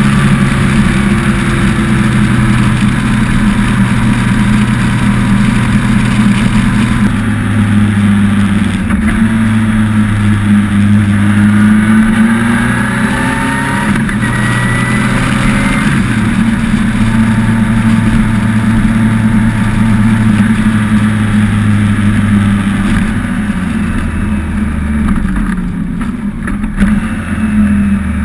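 2002 BMW K1200RS inline-four engine running through its modified stock muffler while the bike is ridden, with wind noise. The engine note rises and drops in steps and falls lower near the end as the bike slows.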